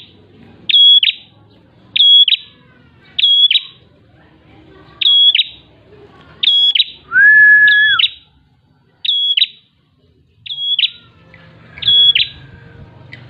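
Caged prinia (prenjak) singing: loud, short, clear whistled notes, repeated about once a second or a little slower, with one longer, lower, steady whistled note about halfway through.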